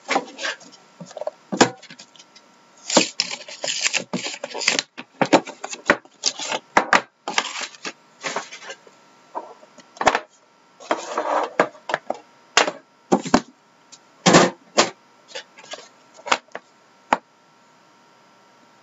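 Trading card packs and cases being handled and opened: irregular sharp clicks and taps mixed with short bursts of rustling.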